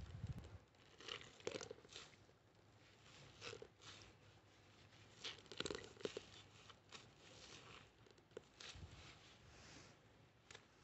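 Wet sponge squeezed and pressed by a rubber-gloved hand in a bowl of creamy laundry-powder paste: soft, irregular squelches and crackles of the paste and its bubbles, loudest about a second and a half and again about six seconds in.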